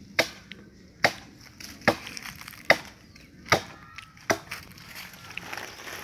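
Machete chopping into a length of palm wood, six sharp blows at an even pace of about one every 0.8 seconds, then a quieter rustle and scrape near the end.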